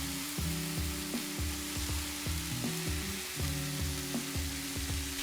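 Noodles, bean sprouts and cabbage sizzling steadily in hot sesame oil in a frying pan.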